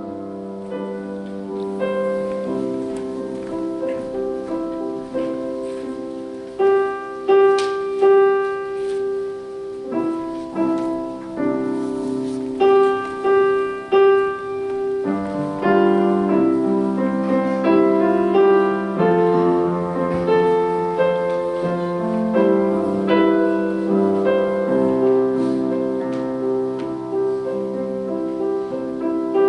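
Slow piano music of held chords under a melody line, with a few notes struck louder in the middle stretch.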